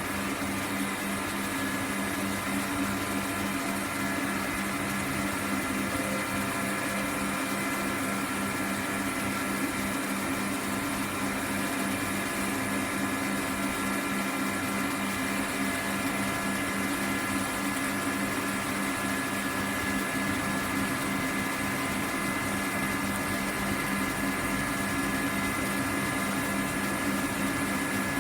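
CNC laser cutting machine running, a steady mechanical hum with a few held tones over an even noise that doesn't change.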